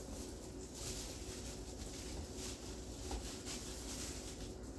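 Knife cutting cooked chicken breast on a wooden cutting board: faint, repeated soft cuts at a steady pace, over a low steady hum.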